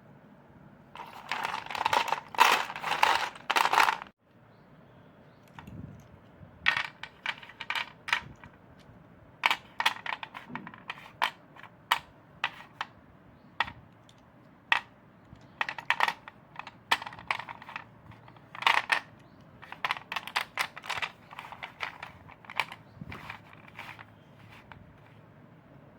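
Chalk crunching: a dense run of crunches for about three seconds that stops abruptly, then irregular sharp snaps and crunches, a few at a time, through the rest.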